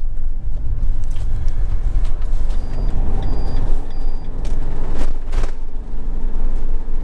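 Motorhome driving on the road, heard from inside the cab: a loud, steady low engine and road rumble. Three short high beeps come evenly spaced around the middle, and two brief knocks follow soon after.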